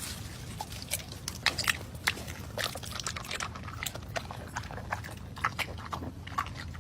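A dog snuffling and chewing, making irregular wet clicks and snaps over a steady low hum.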